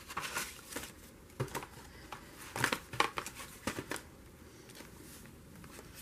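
Paper and card rustling and tapping as journal pages and a paper butterfly die-cut are handled: a run of short crinkles and taps over the first four seconds or so.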